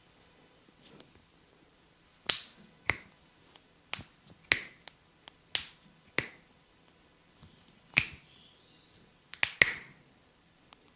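A run of about nine sharp snaps from the barber's hands during an Indian head massage, irregularly spaced, each with a short ring. Two come close together near the end.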